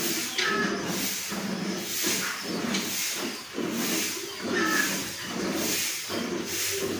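Milk squirting by hand from a cow's teats into a metal bucket of frothy milk: a hissing, frothy spray that comes in rhythmic spurts with each squeeze.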